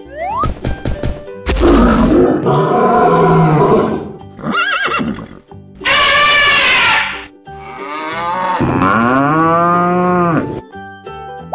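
A series of cartoon animal sound effects over children's background music: a gorilla roaring after a run of rapid thumps, a short horse whinny, an elephant trumpeting, then a long low cow moo near the end.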